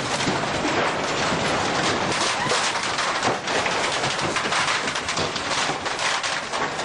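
Metal shelving, binders and stored equipment rattling and clattering during strong earthquake shaking: a dense, unbroken run of rapid knocks and rattles.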